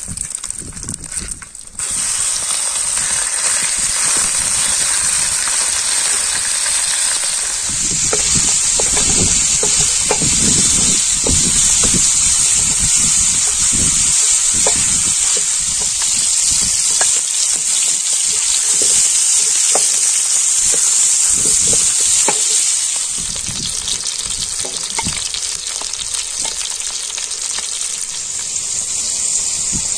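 Mutton tail fat and beef frying on a hot iron saj griddle: a steady loud sizzle with the scrape and knock of a wooden spoon stirring the pieces. The sizzle starts suddenly about two seconds in and eases slightly past the middle as mushrooms and potatoes join the meat.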